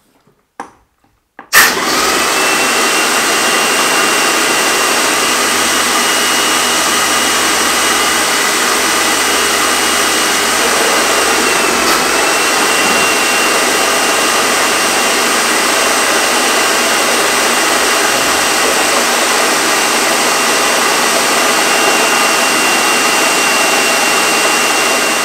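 Airless paint sprayer flushing clean water through its hose, the gun triggered into a bucket: a loud, steady hiss of water jetting from the gun, with a thin high whine running through it. It starts abruptly about a second and a half in and cuts off at the very end.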